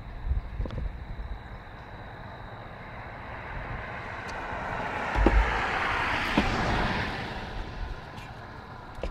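A vehicle passing on a nearby road: its tyre and engine noise swells to a peak about halfway through and fades away, with low thumps of wind on the microphone.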